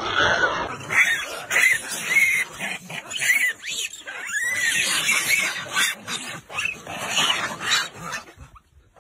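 A troop of macaques calling, with many short squealing calls that rise and fall in pitch and overlap one another. The calls fade out near the end.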